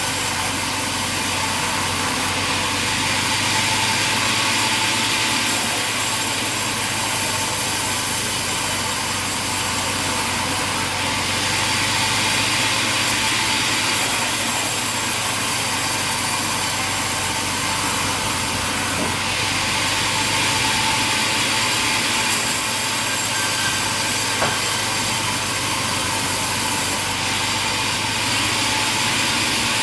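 Sawmill machinery running: a steady mechanical drone with a hiss, swelling slightly now and then.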